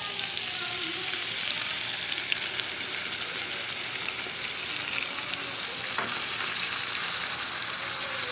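Pieces of meat frying in a pot with a steady sizzle and a few sharp pops, stirred with a wooden spatula.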